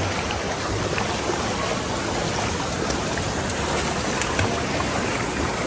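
Steady rush of flowing water in a shallow waterpark pool, with light splashing from small feet wading through it.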